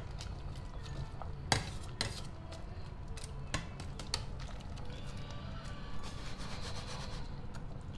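Metal ladle stirring soup in a stainless steel pot, clinking against the pot's sides several times, with the sharpest clack about one and a half seconds in. A steady low hum runs underneath.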